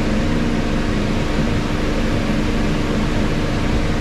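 Refrigeration fans of a sub-zero climate test chamber blowing steadily: an even rushing noise with a steady hum under it.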